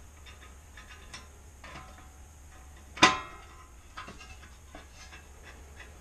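Metal parts and tools being handled on a workbench as the exhaust goes back onto a small tiller engine: light scattered clicks and taps, and one sharp, ringing metal clank about three seconds in.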